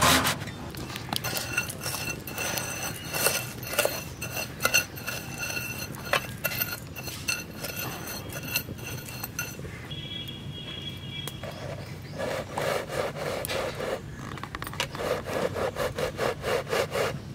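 A metal ladle stirring and scraping coarse sand around an iron kadai: gritty, rapid rasping strokes with a metallic ring from the pan, coming in rhythmic runs in the second half.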